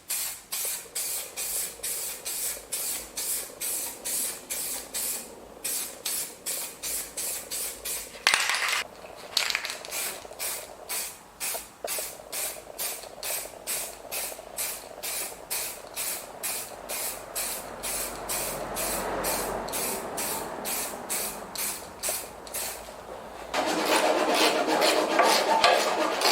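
Aerosol spray-paint can hissing in short, even bursts, about two a second. There is a louder burst about a third of the way in and a louder, fuller spray near the end.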